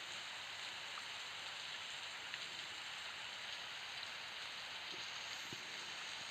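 Steady hiss of rain, even throughout, with a few faint ticks of single drops.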